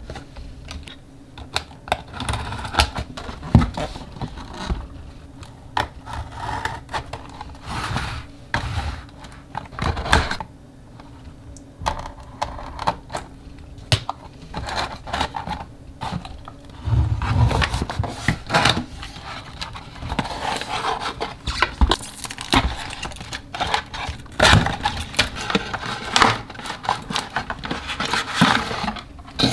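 Cardboard packaging being opened by hand: a small plastic cutter slitting the tape, then flaps and an inner box sliding and scraping out, with many short clicks and taps throughout.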